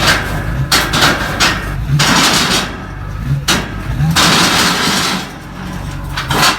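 Pickup truck engine running with a steady low drone, with several loud rushes of noise over it.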